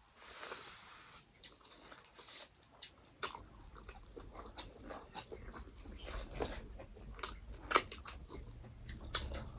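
A person chewing food close to the microphone, with many small wet mouth clicks and crunches, and a soft hissing breath or slurp in the first second.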